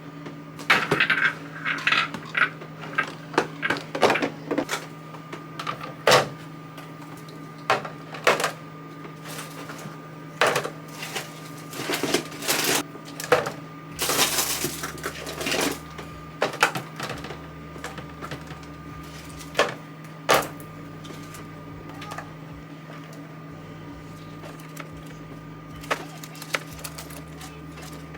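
Toiletries and small containers clicking, knocking and clattering as they are handled and packed into a drawer, in irregular bursts that thin out in the second half, over a steady low hum.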